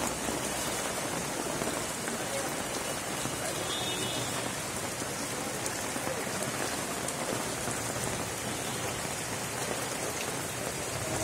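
Heavy monsoon rain falling steadily, a dense even patter of drops on floodwater and on an umbrella held close overhead.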